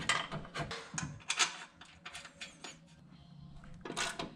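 Irregular light clicks and taps from bolts and suspension parts being handled during the install, thinning out after about three seconds, then a brief clatter near the end.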